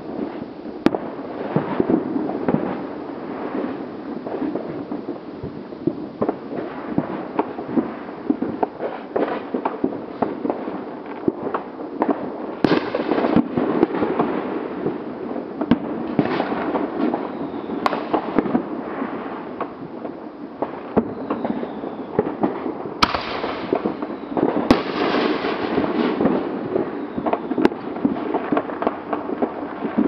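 Fireworks and firecrackers going off all around: a dense, continual crackle of small pops. Several sharper, louder bangs are scattered through it, a few followed by a spell of brighter crackling.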